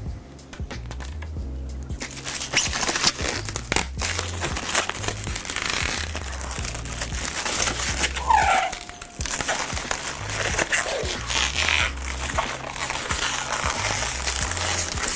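Thin protective plastic film peeled off a tempered glass panel and crumpled by hand, crinkling and crackling, with a brief squeak near the middle. Background music with a steady bass beat plays underneath.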